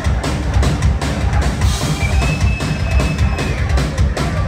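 Punk rock band playing live, the drum kit to the fore with bass drum and snare hits over electric guitars and bass.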